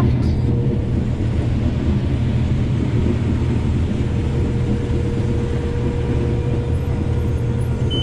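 Combine harvester running steadily while harvesting corn, heard from inside the cab: a constant low engine drone under broad machinery noise, with a faint steady whine from about halfway through.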